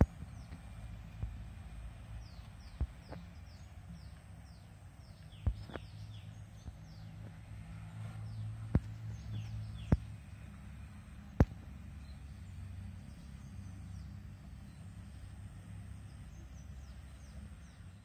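Outdoor ambience with a steady low rumble. Small birds give runs of quick, high, falling chirps for the first several seconds and again near the end. Several sharp clicks stand out as the loudest sounds.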